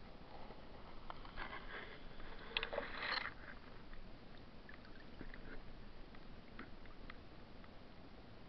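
Water splashing and sloshing around a small camera as it is brought up out of a lily pond, loudest about three seconds in. After that come a few faint ticks over a low hiss.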